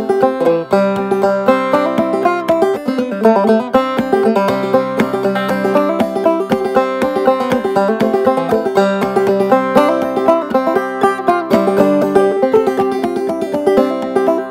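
Five-string banjo played clawhammer style in double C tuning (gCGCD): a solo old-time melody of quick plucked notes in a steady rhythm, with the open strings ringing under it.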